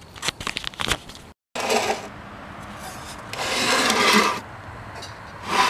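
Old plastic radio cabinet being handled and rubbed: a quick run of light clicks and knocks, then scraping, rubbing noises, the longest lasting about a second.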